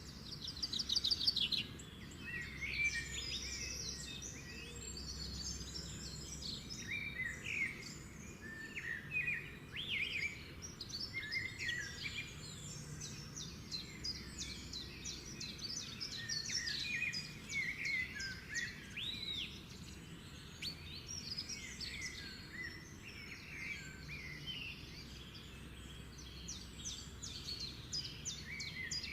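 Many small birds chirping and trilling at once, short overlapping calls and quick rising and falling notes with no pause, over a faint steady low background rumble.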